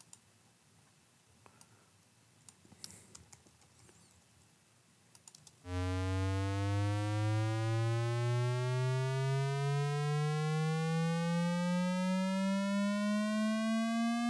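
Faint computer keyboard and mouse clicks, then, about six seconds in, a synthesizer tone starts suddenly and glides slowly and steadily upward in pitch, with a slight regular wobble in level.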